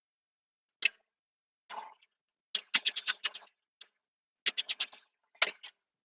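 Sharp plastic clicks and snaps as the broken plastic door flapper of a Dometic RV fridge is worked loose. There are a few single clicks, then two quick runs of five or six clicks each.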